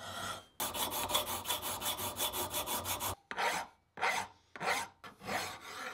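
Steel hand file rasping across a cast bronze nut held in a bench vise, deburring it and filing it smooth. A quick run of short, even strokes lasts about two and a half seconds, then four slower separate strokes follow.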